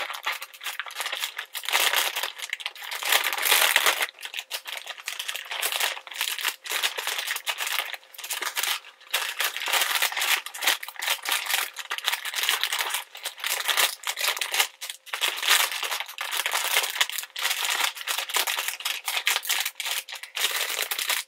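Plastic packaging crinkling and crackling as it is handled and opened: a dense, near-continuous run of sharp crackles with brief pauses.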